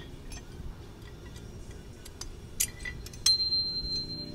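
Light metallic clicks and clinks of hand tools and hitch hardware being handled. A sharper clink a bit over three seconds in leaves a high, steady ringing tone for about two seconds.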